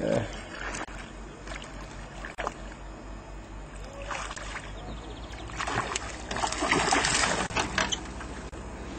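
A hooked fish splashing and thrashing at the surface beside a small boat, in bursts about four seconds in and again, louder, from about six to seven and a half seconds, over a steady low hum.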